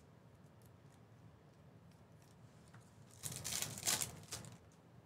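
Low room tone, then about three seconds in, a second or so of crinkling and tearing as a foil trading-card pack wrapper is ripped open.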